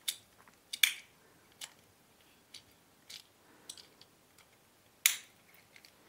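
Sharp plastic clicks and light handling noises as the snap-on plastic cover of a small bed switch is pressed into place, with the two loudest clicks about a second in and near the end.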